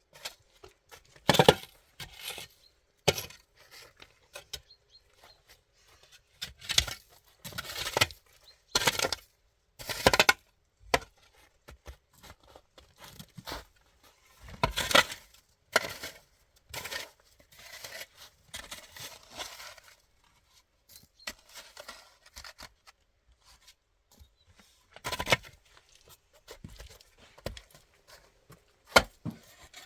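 Irregular knocks, scrapes and rasps of hands-on work with wood or similar material, the loudest knocks about 1.5 s and 15 s in.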